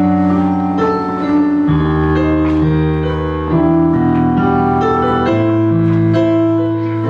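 Keyboard playing slow, held chords of a worship song, the chords changing every second or two.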